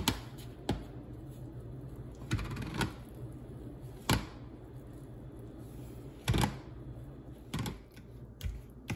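Plastic potato masher pressing boiled yautía (taro root) in a plastic bowl: irregular knocks and soft thuds about once a second as it strikes the bowl, over a steady low hum.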